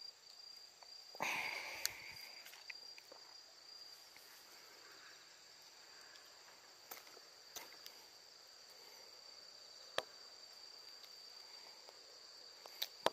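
Insects chirring in a steady, high-pitched, unbroken trill. A short rustle comes about a second in, and a few scattered sharp clicks follow.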